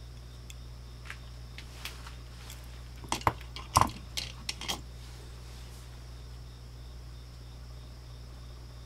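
Swiss Army knives being handled: a run of small metallic clicks and taps over a few seconds, two louder ones near the middle, over a steady low hum and a faint high whine.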